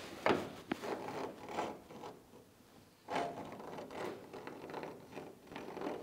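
Rubbing, scraping and rustling handling noises from a man working bent over a car's trunk lid while measuring its gap, with two sharp clicks near the start.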